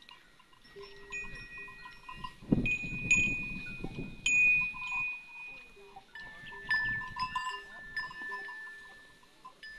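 Neck bells on a herd of zebu cattle ringing as the animals feed and move, several clear sustained bell tones at different pitches starting and fading. A loud burst of low rustling noise comes from about two and a half to five seconds in.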